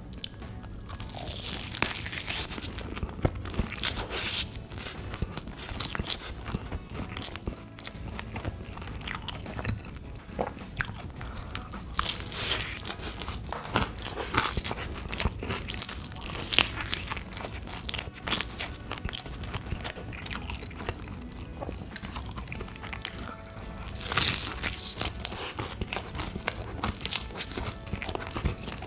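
Close-miked eating: a person biting and chewing food, with crunching and many sharp clicks scattered throughout.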